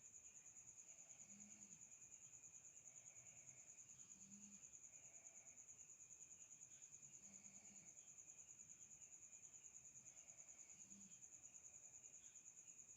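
Faint, steady high-pitched cricket trill, pulsing rapidly and evenly without a break, with a fainter low sound repeating about every second and a half beneath it.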